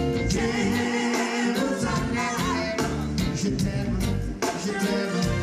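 Reggae band playing with a sung vocal line over drums and a heavy bass line.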